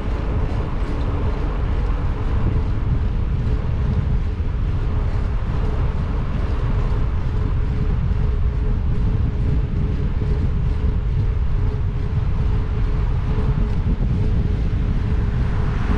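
Wind buffeting the microphone of a camera on a moving bicycle: a steady low rumble, with a faint constant hum underneath.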